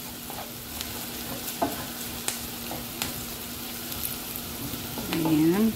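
Diced carrot, capsicum and garlic sizzling in oil in a non-stick frying pan as a wooden spoon stirs them, with a few light clicks and scrapes of the spoon against the pan. A steady low hum runs underneath, and a short bit of voice comes in near the end.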